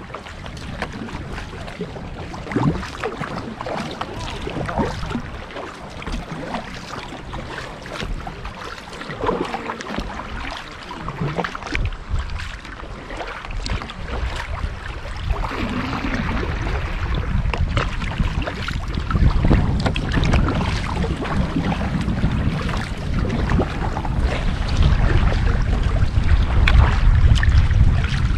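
Sea kayak being paddled: irregular paddle splashes and water lapping at the hull, with wind buffeting the microphone as a low rumble that grows louder over the second half.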